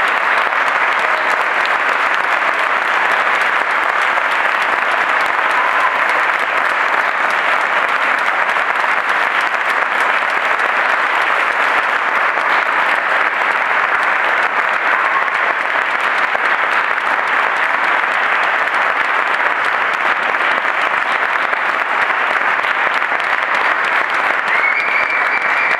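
Large audience applauding steadily in a concert hall, a long, unbroken ovation.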